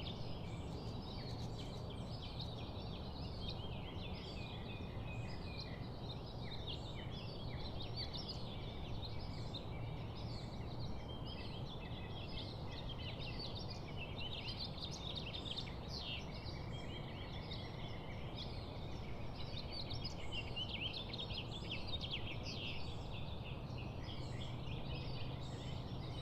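Early-morning chorus of many small birds, with dense overlapping chirps and short trills over a steady low background noise.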